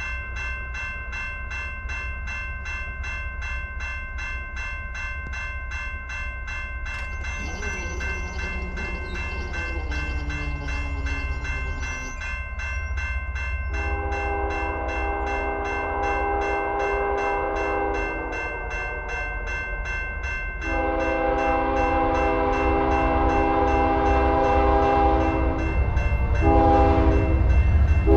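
Level-crossing warning bell starts ringing rapidly and keeps ringing. The approaching freight's lead diesel locomotive (CP 8822) sounds the grade-crossing horn signal: a long blast about halfway through, a second long blast, a short one, then a final long blast starting near the end. Under it the low rumble of the oncoming train grows steadily louder.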